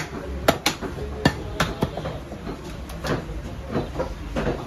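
Butcher's heavy chopping blade striking beef on a wooden block: a quick run of sharp chops in the first two seconds, then a few softer strikes.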